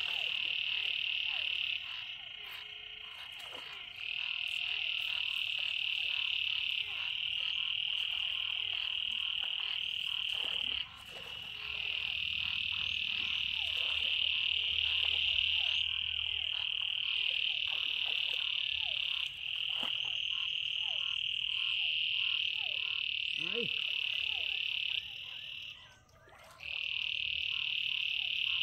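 A dense chorus of frogs calling from rain-flooded ground: a continuous high-pitched trilling that steps up and down in loudness every few seconds and breaks off briefly several times, most fully near the end. Light splashing of hands working in shallow water sits underneath.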